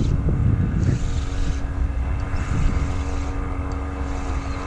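Wind buffeting the microphone in uneven low rumbles, over the steady hum of a distant engine that holds one pitch.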